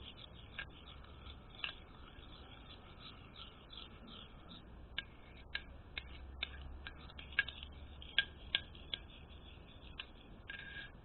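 Spoon stirring soap-and-detergent slime in a bowl: a faint wet rubbing, with scattered sharp clicks of the spoon against the bowl that come more often in the second half.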